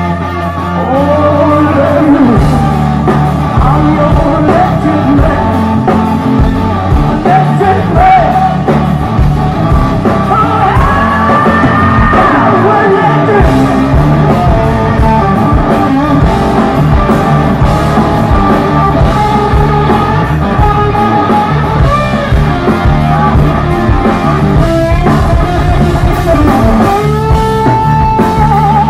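A rock band playing live through a loud PA: electric guitar, bass and drums, with a man singing.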